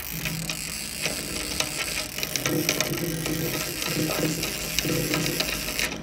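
Large conventional trolling reel being worked as line is spooled on: its ratchet clicking rapidly, with an on-and-off low whirr from the gears.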